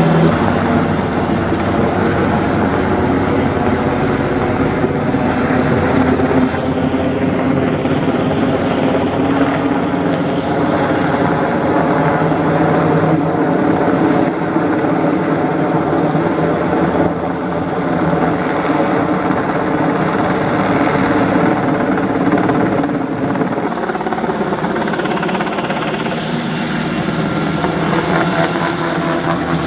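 Sikorsky UH-60 Black Hawk helicopter flying overhead with a sling load on a long line. Its rotors and twin turbine engines run loud and steady, and the hiss sweeps twice as it passes.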